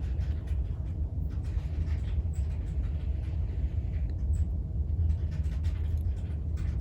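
Steady low rumble of background noise, with faint scattered clicks and taps of a fork on the mug while a bite of mug cake is taken and eaten.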